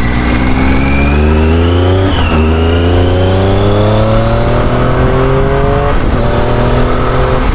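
Triumph Tiger 800's three-cylinder engine accelerating hard, its pitch rising steadily through each gear, with two upshifts, about two seconds in and about six seconds in.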